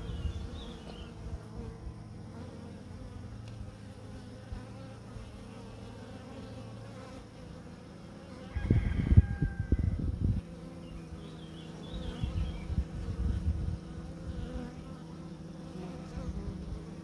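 Honeybees buzzing steadily at the entrance of a small mating nuc. Louder low rumbling bumps break in about nine seconds in and again around twelve to thirteen seconds.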